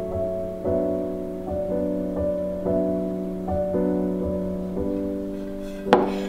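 Gentle background piano music, a new chord about every second. Near the end comes one sharp knock, a frying pan set down on a wooden table.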